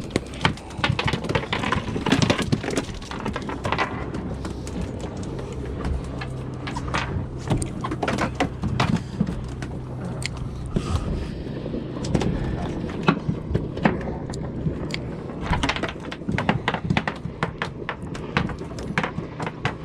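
Irregular knocks and clicks of fishing gear and a fish being handled in a small boat, over a low steady hum.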